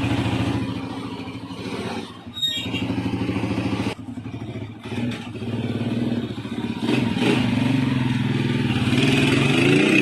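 Honda TMX 155's single-cylinder four-stroke engine running steadily, with its pitch rising and wavering as it is revved in the second half. It is running after a valve clearance adjustment that the mechanic says has cured its loud engine noise.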